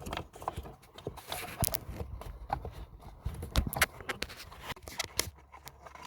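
Hands working among the plastic pollen filter housing and trim under the dashboard, making irregular clicks, taps and rustling.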